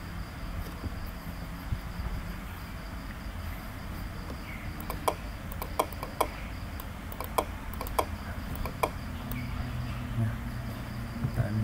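Computer mouse clicks, a dozen or so, spread irregularly, over a low steady hum and a faint high trill that comes and goes.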